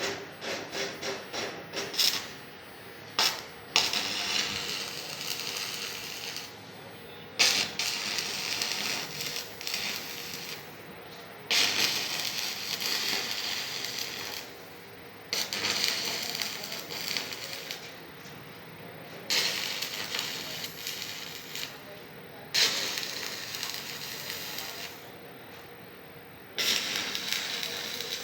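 Electric arc welding: a crackling hiss that comes in about eight bursts of two to four seconds, each one starting sharply as the arc strikes and stopping when it breaks, with short pauses between welds. The first two seconds hold a fast ticking.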